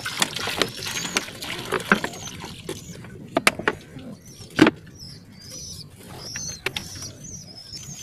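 Water poured from a bottle splashing into a plastic drinking basin, then a few sharp knocks, the loudest just past the middle, and a run of short high squeaks or chirps through the second half.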